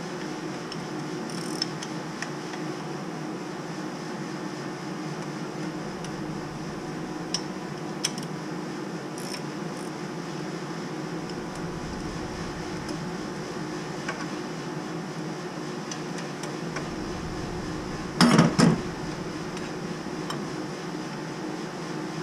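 Steady low mechanical hum of boiler-room equipment, with occasional light clicks of tools and fittings on metal as the pump's wiring box is worked on. Near the end there is a brief, loud metallic clatter of a few quick knocks.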